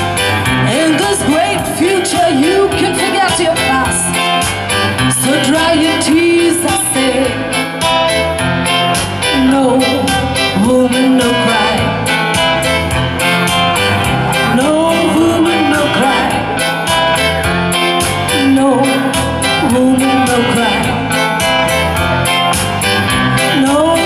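Live band music: a woman sings over electric guitar and keyboard, with a steady beat.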